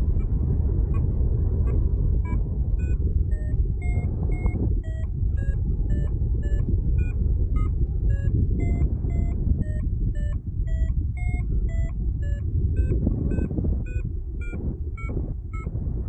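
Paragliding variometer beeping in short tones, about two to three a second, the pitch stepping up and down as the climb rate changes: the glider is climbing in a thermal. Loud wind rush on the microphone underneath.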